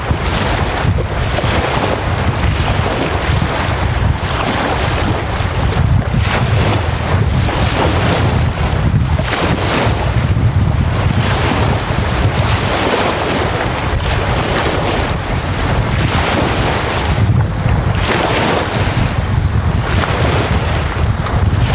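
Small freshwater lake waves breaking and washing up a sandy beach, the rush swelling and falling back every few seconds, under steady wind that rumbles on the microphone.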